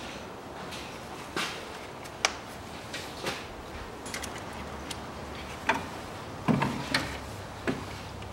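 Scattered clicks and knocks of hands working in the engine bay, pulling the spark plug leads off a Daewoo Matiz's 0.8-litre engine, with a small cluster of heavier knocks about two-thirds of the way in.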